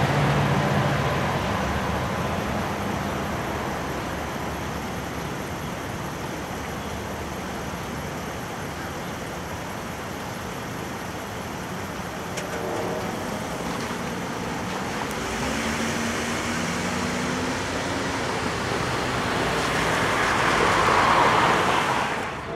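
Road traffic noise at a railroad grade crossing. The sound of a just-passed train fades over the first few seconds into a steady wash of car noise, and a vehicle passing close about 20 seconds in is the loudest moment.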